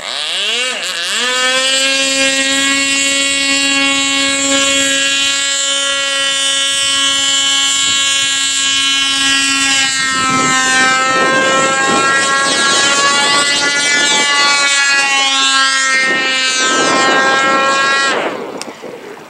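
Model airplane's motor starting up with a quick rise in pitch, then running at a steady high pitch. It cuts off and fades near the end.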